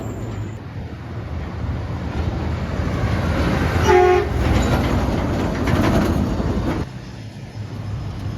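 A big truck passing with a steady engine and tyre rumble, giving one short blast of a train horn about four seconds in. The rumble drops off near the end.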